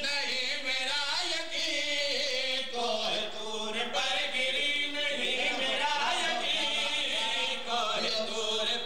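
Several men chanting together in a drawn-out melodic majlis mourning recitation, with a lead voice and others joining in unison, unaccompanied by instruments.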